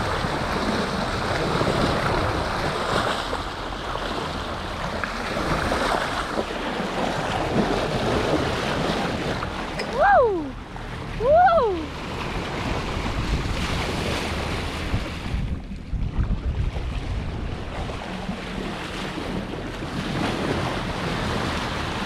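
Sea water rushing and splashing along the bow of a Swanson 36 sailing yacht under way, with wind buffeting the microphone. About halfway through, two short whistle-like calls slide steeply down in pitch, about a second and a half apart.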